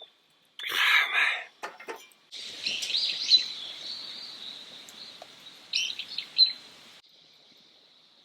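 Wild birds chirping outdoors, short rising and falling calls coming in a cluster for several seconds, after a brief loud rustling noise about a second in.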